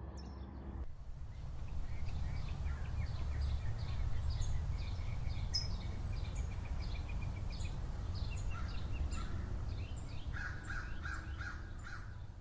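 Outdoor ambience: songbirds chirping in short, quick notes over a steady low rumble. A short run of lower, evenly repeated call notes comes near the end.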